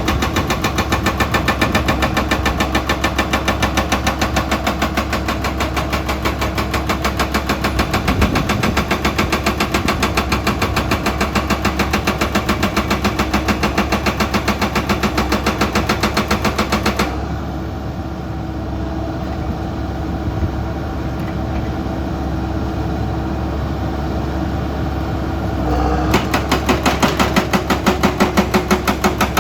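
Excavators at work: a diesel engine runs with a fast, regular beat of pulses that stops for about nine seconds past the middle, leaving the engine alone, then starts again.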